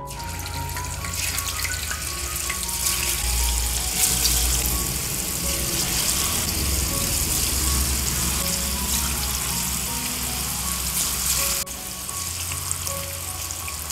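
Tofu cubes sizzling as they deep-fry in hot oil in a wok. The sizzle builds over the first few seconds as the cubes are dropped in one by one, then eases a little near the end.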